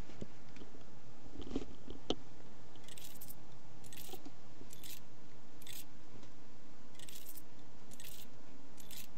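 Plastic stylus nib scratching across a drawing tablet in short sketching strokes, roughly one a second, with two soft knocks shortly before the strokes begin.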